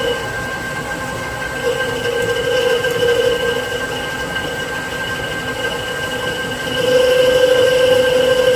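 Victor 1640 DCL lathe running a Valentine boring head through a bored hole, a steady machine whine with a ringing tone from the cut that grows louder about seven seconds in.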